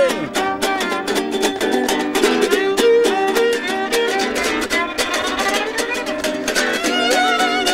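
Violin and small acoustic guitar playing an instrumental tune together: steady rhythmic guitar strumming under a violin melody, with a sliding drop in the violin's pitch at the very start.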